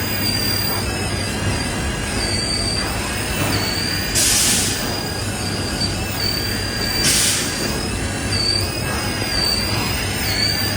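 Excavator working, its diesel engine humming steadily under a thin, high, slightly wavering metallic squeal. Two short bursts of hiss come about four and seven seconds in.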